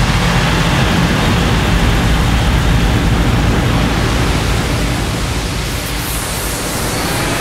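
Intro sound effect: a loud, steady rushing noise with a low rumble underneath, easing off slightly about five to six seconds in.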